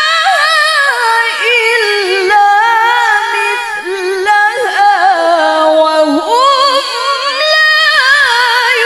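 A woman reciting the Quran in the melodic tilawah style into a microphone, drawing out long, ornamented notes whose pitch winds up and down in slow melismatic phrases.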